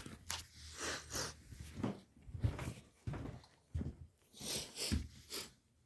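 A man with a head cold sniffling and breathing through a stuffy nose in short, irregular sniffs, with a few soft knocks among them.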